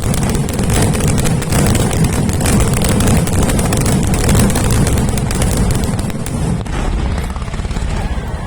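Fireworks finale barrage: aerial shells exploding in a dense, continuous run of booms and crackles, thinning slightly near the end.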